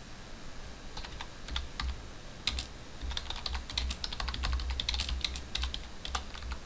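Typing on a computer keyboard: a run of irregular keystrokes that starts about a second in and runs on in quick, uneven clusters.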